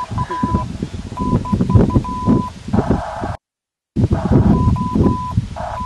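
An electronic beep tone keyed on and off in a Morse-like pattern of short and long beeps, with short bursts of hiss between them over handling rustle. The sound cuts out completely for about half a second past the middle.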